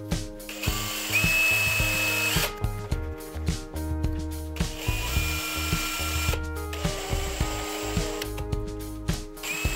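DeWalt cordless drill running in several bursts of a second or two, with a high whine, as it bores small holes through a paper template into a wooden block. Background music plays throughout.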